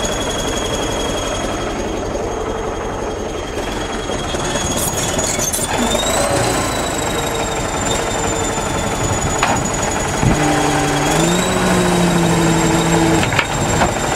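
Crawler bulldozer's diesel engine running hard with a rattling clatter as it works over brick rubble. A high whine runs through it and rises as the revs climb, about six seconds in and again near eleven seconds.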